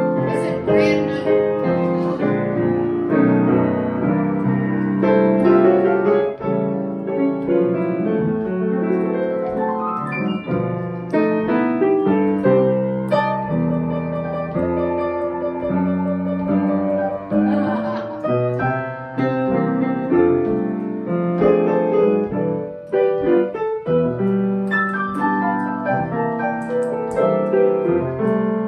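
Grand piano played solo: a piece with melody and chords, notes struck one after another without a break.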